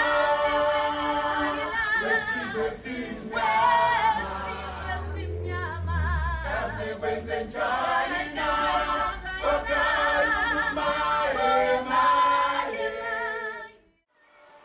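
Choral singing with several voices held in vibrato, with a deep low swell in the middle. The singing cuts off suddenly near the end.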